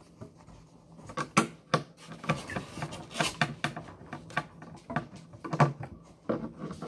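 Uneven close knocks, rubs and scrapes picked up by a phone microphone lying on a carpeted floor, from handling of the phone and puppies moving about right beside it. The two loudest knocks come about a second and a half in and about five and a half seconds in.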